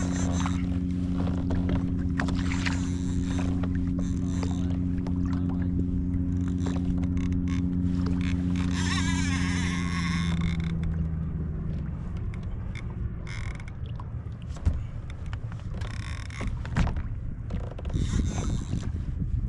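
A boat motor humming steadily, then fading out about ten to twelve seconds in. After it fades, irregular noise remains with two sharp knocks.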